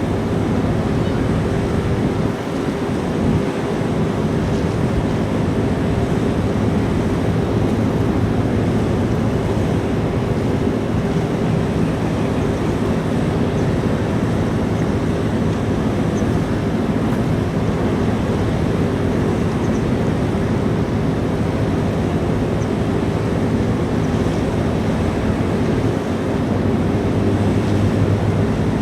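Large car ferry's engines and machinery giving a steady low drone with several held tones, under a wash of wind and water noise. A low tone grows slightly louder near the end.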